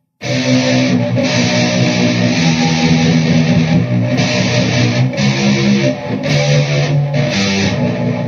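Electric guitar played through a Peavey VYPYR X2 amplifier: loud strummed chords that come in just after a brief moment of silence and ring on.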